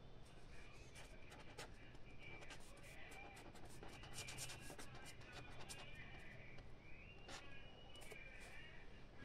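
Pen writing on paper: faint scratching strokes with many small ticks as the pen moves and lifts.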